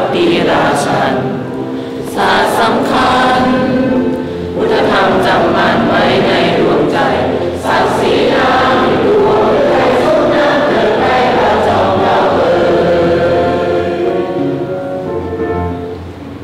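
A large group of students singing together, many voices at once, the singing fading away near the end.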